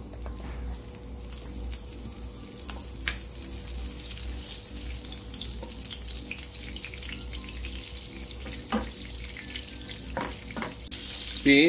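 Butter melting and sizzling in a nonstick frying pan, stirred with a wooden spatula that gives a few light scrapes and taps, a couple of them near the end. A steady low hum runs underneath.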